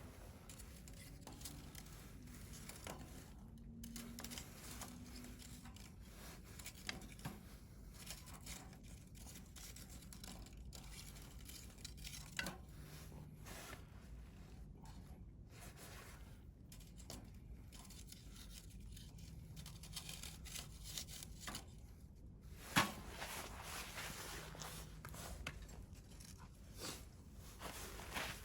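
Wood campfire burning in a stainless steel fire grill: a faint steady hiss with scattered small crackles and pops, and one sharp, louder pop about three-quarters of the way through.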